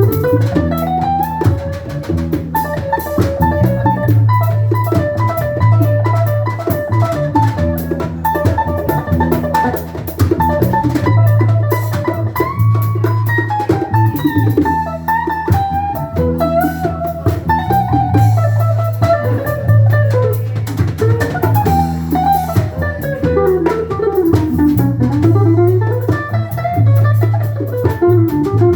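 Band playing an instrumental break: a guitar lead line with bends and runs over a steady bass and drum-kit groove.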